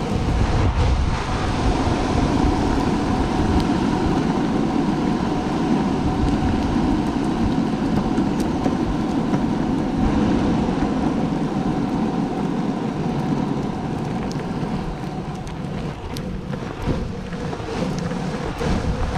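Longboard wheels rolling steadily over park pavement, a continuous rumble with a faint hum and scattered clicks from joints in the path, with some wind on the microphone.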